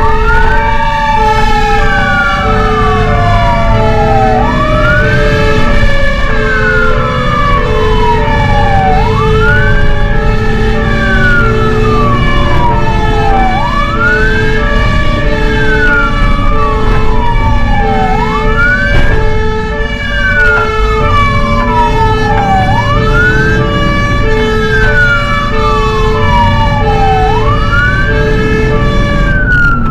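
Fire engine sirens: a wail that rises quickly and falls slowly, repeating about every four and a half seconds, over a second siren's steady pulsing tone. A lower tone falls slowly through the first half, and the truck's engine runs underneath.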